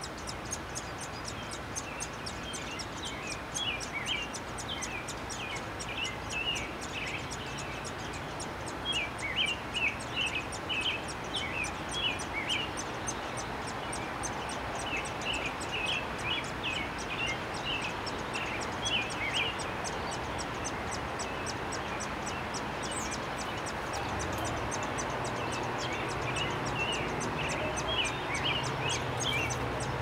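A songbird singing in phrases of quick chirpy notes, several phrases a few seconds apart, over steady outdoor background noise and a fast, even, high-pitched ticking. A low steady hum comes in near the end.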